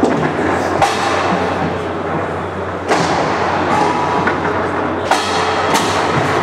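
Foosball play on a Roberto Sport table: sharp knocks and clacks of the ball and the rods' plastic men striking. About five loud strikes come over a steady background din.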